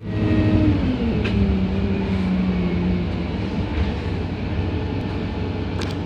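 Wright StreetLite DF single-deck bus heard from inside the passenger cabin on the move: steady engine and road rumble, with a whine that falls in pitch over the first three seconds and two sharp rattles.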